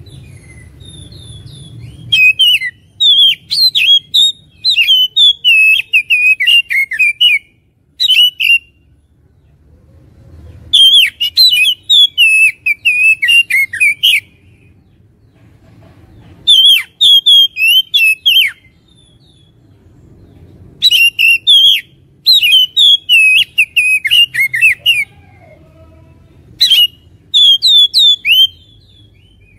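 Oriental magpie-robin (kacer) song: loud bouts of rapid, varied whistled phrases a few seconds long, about five of them with short pauses between, over a faint steady low rumble. It is a lure song of the kind played to provoke a kept magpie-robin into singing and fighting form.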